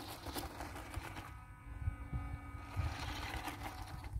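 A WPL D12 1/10-scale RC kei truck driving over gravel: its small electric motor whines steadily while its tyres crunch over the stones, over an uneven low rumble.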